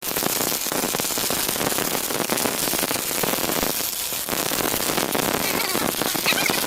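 MIG welding arc crackling steadily, a dense frying sizzle that eases briefly about four seconds in.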